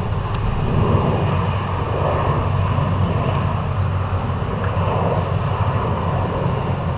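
Jet airliner engine noise: a steady rumble that eases slightly near the end.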